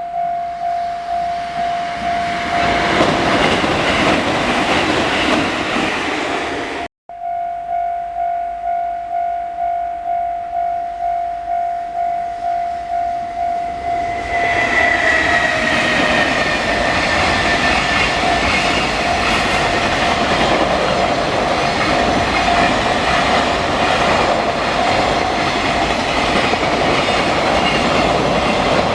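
Japanese level-crossing warning bell clanging steadily about twice a second while trains pass. Train noise swells a few seconds in and breaks off abruptly. About halfway through, a train arrives with a brief high tone that dips slightly in pitch, and its rumble and wheel clatter carry on over the bell to the end.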